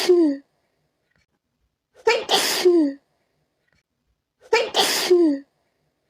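A person sneezing again and again, about one sneeze every two and a half seconds: the tail of one sneeze at the start, then two full sneezes. Each is a sudden sharp burst that ends in a falling vocal note, with quiet gaps between them.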